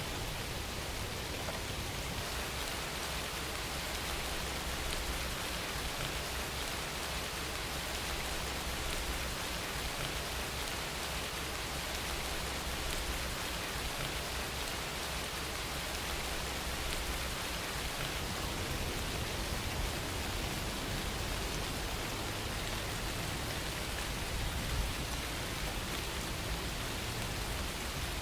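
Steady rain falling: an even, unbroken hiss of many drops with a low rumble beneath.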